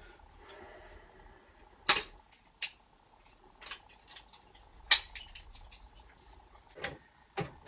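Metal plumbing parts and tools being handled, clinking and knocking: several sharp clanks, the loudest about two and five seconds in, with quieter rattling between.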